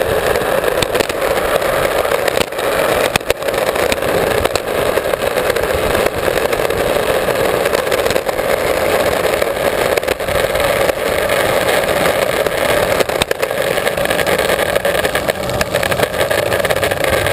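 Skateboard wheels rolling fast over asphalt close to the camera: a steady, loud rolling noise with frequent small clicks and knocks from bumps and cracks in the road.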